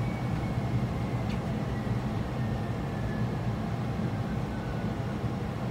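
Airbus A320 flight-simulator cockpit sound: a steady low rumble of engine and airflow noise, with a faint high whine that slowly falls in pitch.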